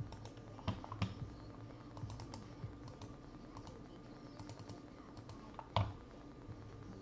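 Faint, irregular clicks of a computer keyboard and mouse, with a louder pair of clicks about a second in and another louder click near the end.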